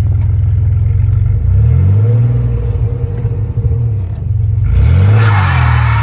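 Chevy truck engine revving hard twice, its pitch climbing and falling back each time. During the second rev a loud rushing hiss comes in and runs on to the end.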